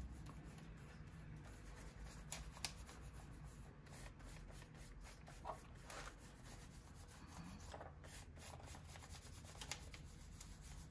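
Faint rubbing on paper as watercolour paint is worked across a journal page, with a few soft ticks.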